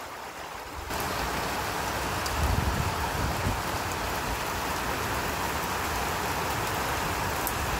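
Heavy rain pouring down, a steady dense hiss of drops on the wet driveway and lawn, coming up to full strength about a second in.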